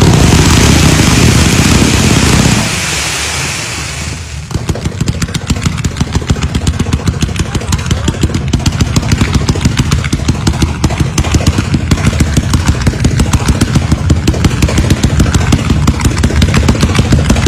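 Firecrackers going off: a loud hissing, crackling burst for the first couple of seconds, then a long run of rapid, evenly spaced bangs, as a string of crackers bursts one after another.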